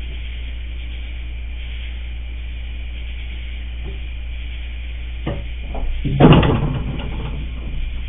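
Black bear pulling a bird feeder off its hook and coming down onto a wooden porch deck: a couple of knocks, then a loud thud with rattling about six seconds in and a few smaller knocks after it, over a steady low hum.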